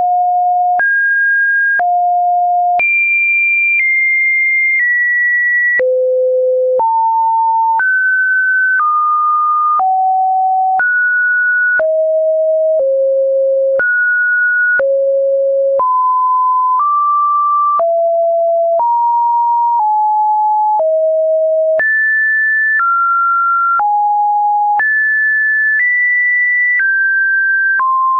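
Computer-generated pure sine test tone that jumps to a new random pitch about once a second, wandering between a middle and a fairly high pitch, with a click at each change.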